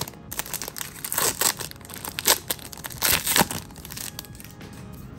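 A trading card booster pack's foil wrapper being torn open and crinkled by hand, with a flurry of loud crackles in the middle that then die down to quieter rustling.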